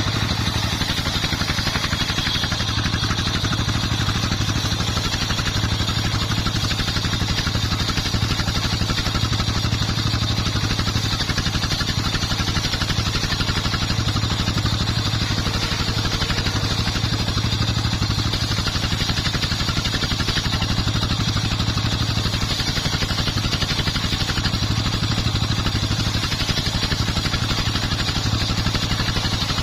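Dongfeng 24 hp stationary diesel engine running steadily under a homemade circular saw rig, a fast even chugging with a hiss from the spinning saw.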